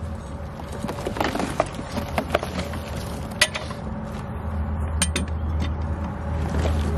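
A large log being rolled with a Log Ox steel cant hook: scattered wooden knocks and scrapes with metal clinks from the hook, over a steady low rumble.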